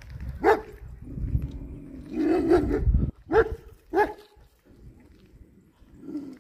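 A dog barking several times in short, separate barks, with a longer, rougher bark between them; a low rumble runs under the first half.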